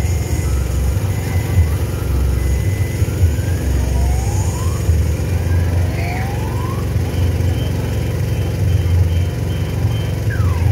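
Small kiddie-ride cars rolling around a circular steel track: a steady low rumble that swells and fades. Twice near the middle a faint rising electronic whistle sounds.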